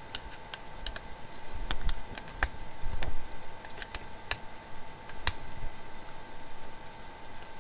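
Handling noise: scattered light clicks and small knocks, roughly one every second, over a faint steady high hum.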